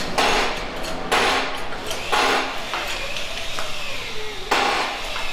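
Short, hard scraping strokes on metal, four of them at irregular spacing: a hand tool scraping old gasket sealant off a differential housing.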